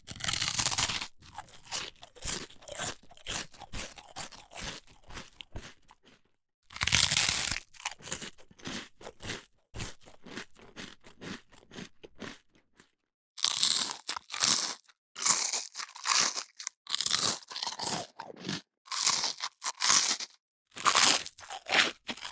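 Crisp toast being bitten into and chewed: a loud crunch followed by a run of smaller, fading crunches, then the same again about seven seconds in, and in the second half a quicker run of loud crunches, about two a second in short groups.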